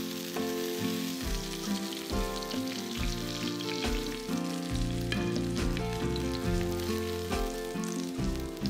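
Hot vegetable oil sizzling and crackling in a frying pan after breaded perch have been frying in it. Background music with steady, changing notes plays underneath.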